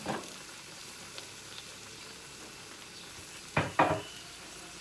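Sliced onions sizzling steadily in lard in an aluminium pressure cooker pan. A wooden spoon stirs them, with a short scrape at the start and two louder scrapes close together near the end.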